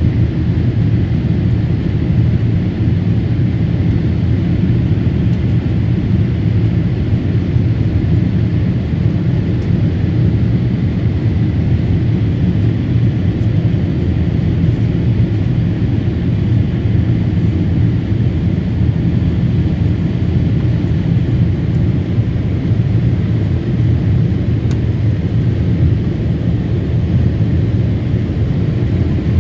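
Steady cabin noise inside a Boeing 787 Dreamliner climbing after takeoff: a constant low roar of the jet engines and rushing air, heard through the cabin walls.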